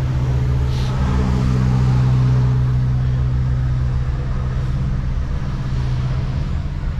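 Semi-truck's diesel engine running at low revs, heard from inside the cab while the truck creeps along; its hum swells slightly about a second in and then holds steady.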